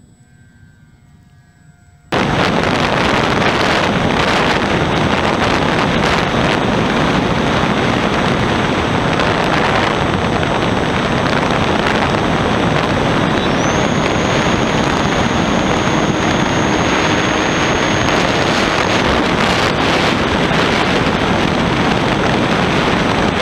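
Loud, steady rush of wind and propeller noise from a camera riding on a Sky Hunter RC plane in flight, starting suddenly about two seconds in. A faint high whine comes through for a few seconds in the middle.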